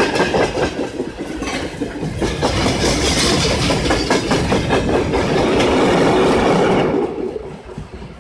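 Loaded open freight wagons on broad-gauge track rolling past close by, wheels clicking over the rail joints, with a towed diesel locomotive at the tail of the train. The sound fades away about seven seconds in as the end of the train passes.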